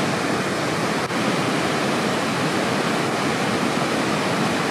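Steady rushing of a mountain stream running over rocks and boulders.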